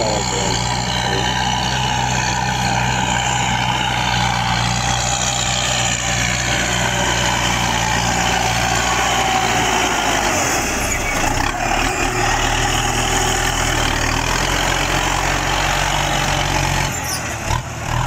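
Farm tractor engine running steadily as it drives a rotary tiller through a rice field. The engine note changes about ten seconds in.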